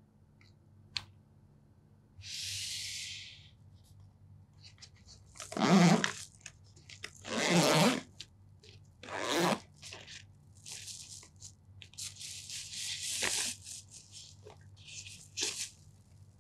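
Close handling sounds: a small click as a headphone plug is pushed into the player's jack, then a zipper and a crinkly zippered bag being pulled open and handled. The bag gives several loud bursts of crinkling, tearing-like noise.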